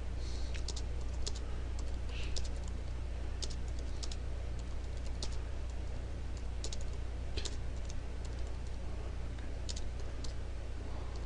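Typing on a computer keyboard: irregular keystroke clicks over a steady low hum.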